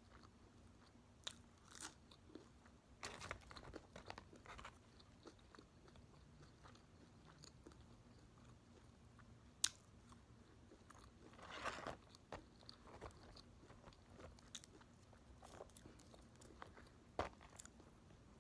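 Faint chewing and crunching of food in scattered soft bursts, with one sharp click about ten seconds in.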